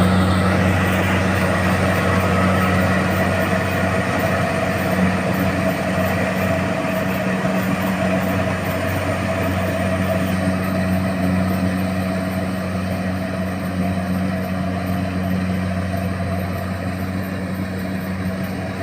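Rice combine harvester's engine running steadily with a low, even hum that slowly fades.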